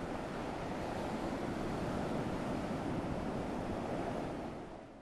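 Steady wash of ocean surf, fading out near the end.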